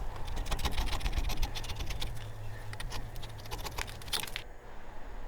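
Old gasket being scraped off a metal mating surface with a hand scraper, in quick, short, scratchy strokes that stop about four and a half seconds in.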